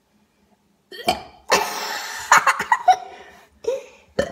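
Young boys laughing in short bursts, starting about a second in, with a long noisy outburst in the middle.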